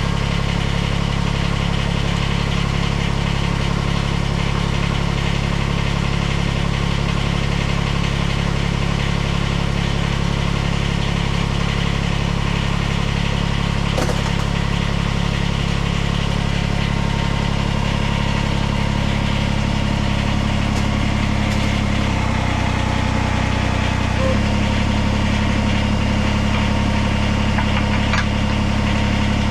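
Kubota diesel engine idling steadily. About 22 seconds in, the engine note changes and drops for roughly two seconds, then returns to its steady idle.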